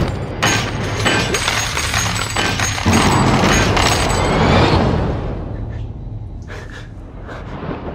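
Gold coins clinking and ringing in a dense rush as they pile up, over a music score. The sound fades away after about five seconds.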